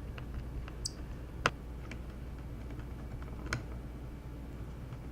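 Scattered light clicks and taps of small plastic laptop parts being handled and fitted, with a sharper click about one and a half seconds in and another about three and a half seconds in, over a low steady hum.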